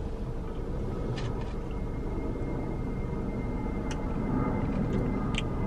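Steady hum inside a car cabin, with a faint high whine running through it and a few soft clicks.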